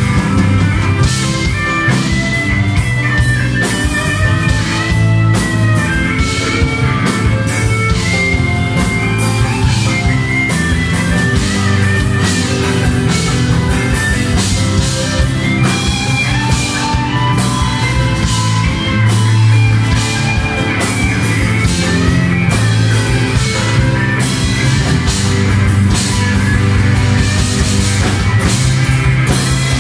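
Live rock band playing through stage speakers: electric and acoustic guitars, electric bass and a drum kit, with cymbals struck steadily throughout.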